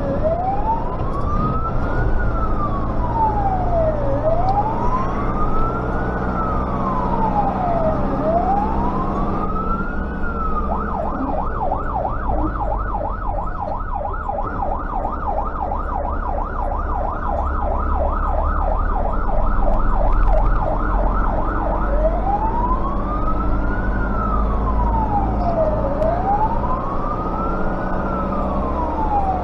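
Fire-engine siren wailing in slow rising and falling sweeps. About ten seconds in it switches to a fast yelp, then returns to the slow wail about twelve seconds later. It is heard from inside the cab of a Tatra 148 fire truck, over the steady drone of its air-cooled V8 diesel engine.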